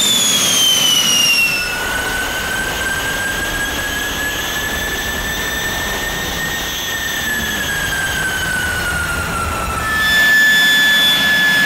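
Rolls-Royce Derwent Mk 8 turbojet running, a loud rush of jet exhaust with a turbine whine that slides slowly up in pitch and back down, then holds steady about ten seconds in.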